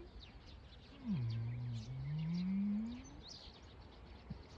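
A deep, moo-like animal call lasting about two seconds: it dips sharply in pitch, then slowly rises. Faint birds chirping throughout.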